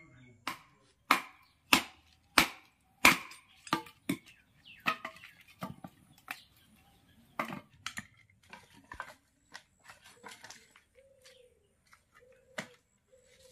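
Machete chopping dry firewood sticks: a quick, even run of sharp chops, then lighter, irregular strokes with longer gaps between them.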